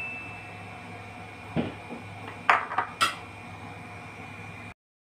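Kitchen clatter: a dull knock, then a few sharp clinks of a ceramic plate set down on a tiled counter beside the stove, over a faint steady high-pitched tone.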